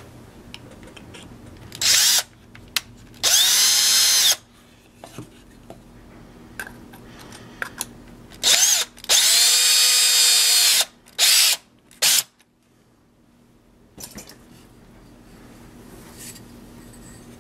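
Cordless drill run in several short spurts and two longer runs of a second or two, drilling a hole through a small square of hardboard; the motor's whine climbs as it spins up and drops as it stops.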